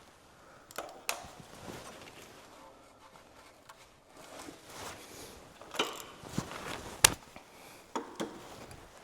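Scattered clicks and light knocks of hand tools and spark plug parts being handled in the engine bay, with light rustling in between; the sharpest click comes about seven seconds in.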